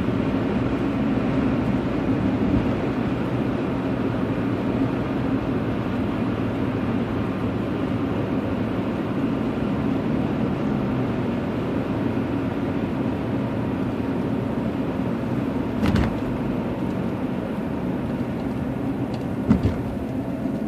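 Steady road and engine noise heard from inside a moving car's cabin, with a low hum. Two brief knocks, one about three-quarters of the way through and a sharper one near the end.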